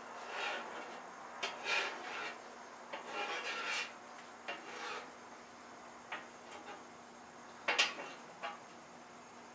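Spatula scraping across a hot flat-top griddle in a series of short strokes, with a few light taps between them and the loudest scrape near the end.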